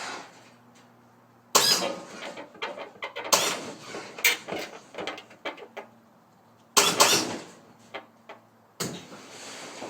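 Lowrider hydraulic suspension worked from its switches: four sudden, harsh bursts of clank and hiss a couple of seconds apart, each dying away within about a second, with a faint low hum between them.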